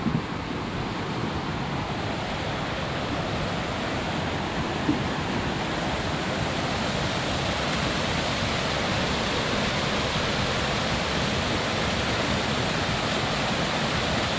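Strong wind blowing steadily in a continuous rushing hiss, building slightly over the first few seconds and then holding level.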